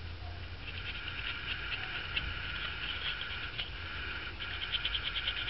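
Stiff paintbrush bristles scrubbing quickly over EVA foam, dry-brushing a touch of ochre oil paint on: a scratchy patter of short strokes that comes thickest near the end, over a low steady hum.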